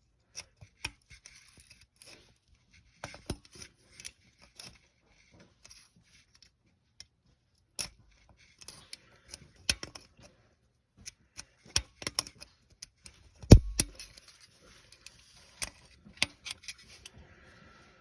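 Spring-loaded center punch snapping against a broken bolt stub, a series of irregular sharp clicks with one louder snap about two-thirds of the way through, used to nudge the bolt round so it backs out.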